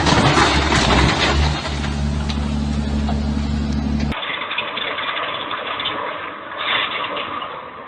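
A heavy machine's engine running steadily, with a loud, noisy burst in the first second or so. About four seconds in, the engine hum stops abruptly and a thinner, steady hissing noise takes over.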